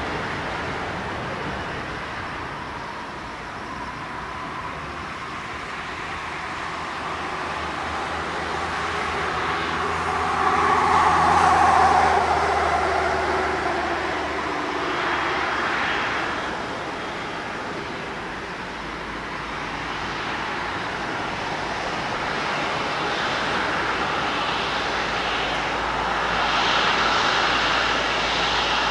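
Boeing 777-200ER's Rolls-Royce Trent jet engines running as the airliner taxis after landing. The sound swells to its loudest about twelve seconds in, and a high engine whine comes up near the end.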